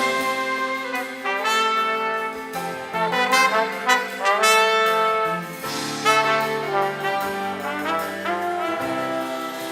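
A band's brass section playing together during a sound check: several horns holding chords that change every second or so, with short phrases moving between them.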